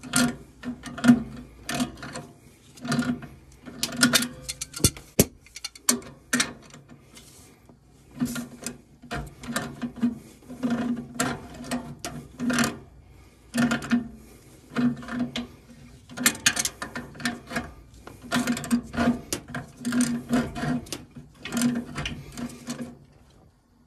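Ratcheting wrench clicking in quick bursts, stroke after stroke with short pauses, as it turns a brass valve fitting on boiler piping.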